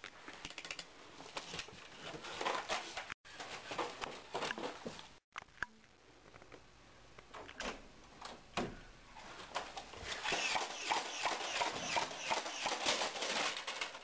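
Quiet, irregular light taps and clicks that get busier in the second half, broken by two brief dropouts to silence about three and five seconds in.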